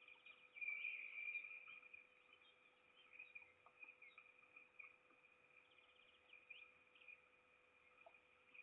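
Faint nest-camera sound of peregrine falcon chicks: one high call lasting about a second, starting about half a second in, over a steady faint high hiss with a few soft ticks and a faint steady hum.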